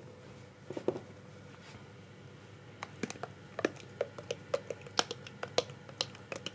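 A spatula scraping and knocking against the inside of a blender jar as thick hummus is worked out onto a plate: a run of quick, light clicks that starts about three seconds in.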